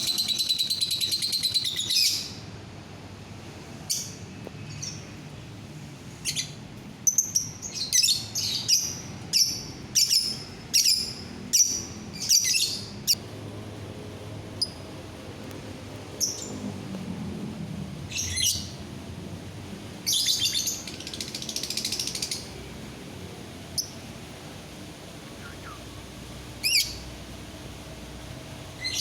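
Lovebird calling: a fast, high chatter for the first two seconds, then a run of short, sharp, high-pitched chirps, about one a second, in two bursts with pauses between and a few single chirps near the end.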